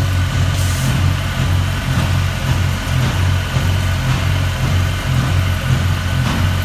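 Engine of construction machinery running steadily at idle, a low, even drone.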